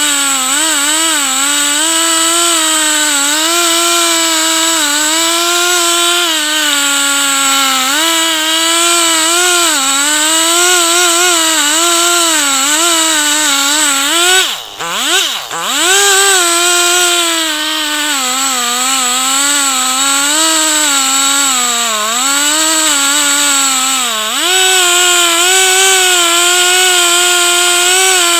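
Two-stroke chainsaw running at high revs in a chainsaw mill, its pitch wavering up and down under the load of the cut. About halfway through, the engine note dips sharply and briefly, then climbs back to full speed.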